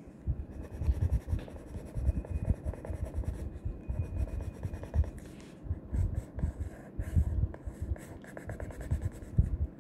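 Coloured pencil rubbing on paper in short, repeated strokes, with irregular soft low bumps as the pencil and hand press against the page.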